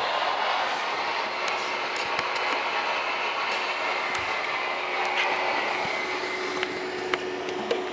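Cooling fan of a running Sony LCD projector: a steady rush of air with a faint steady hum coming in about three seconds in, and a few light clicks near the end.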